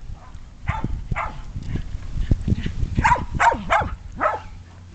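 A dog barking repeatedly: two barks about a second in, then four more in quick succession in the second half.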